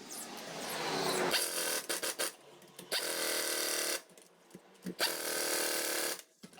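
Pneumatic impact wrench running in three bursts of about a second each, the first building up gradually, with short gaps between them.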